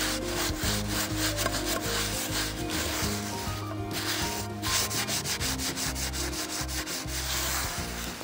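Kitchen paper rubbed hard around the inside of an iron pan with oil and coarse salt, scouring off the burnt-on crust after seasoning. It goes in quick, repeated scrubbing strokes, several a second.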